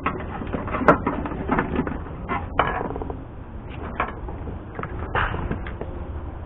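A vapor-barrier sheet being handled and tucked in against a truck door's inner panel: irregular rustling and small clicks, with one sharp click about a second in.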